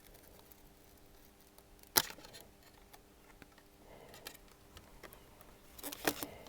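Small sharp clicks and crackles from a cracked smartphone screen being pried and peeled off its double-sided tape: one sharp click about two seconds in and a cluster of crackles near the end.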